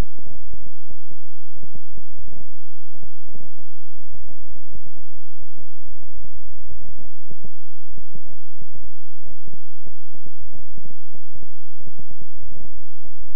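Loud, deep electronic drone of a healing-frequency track: steady low tones under a pulsing that comes at an uneven pace.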